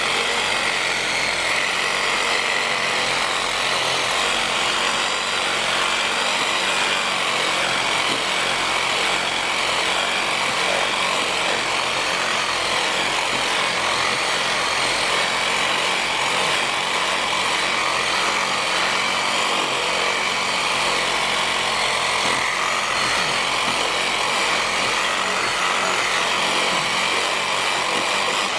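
Corded electric reciprocating handsaw running and cutting through a tree branch: a steady motor buzz with the blade rasping in the wood, stopping near the end. It is pressed hard into the cut, which makes it vibrate heavily.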